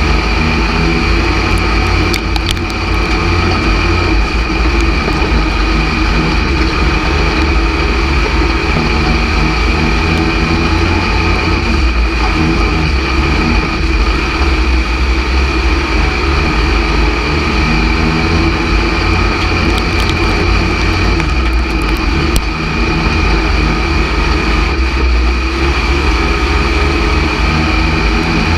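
A dirt-track stock car's V8 engine running under racing load, heard loud and steady from inside the cockpit, with a few sharp clicks about two seconds in and again around twenty seconds in. The motor is down on power, and the driver says it cuts out on the straightaways.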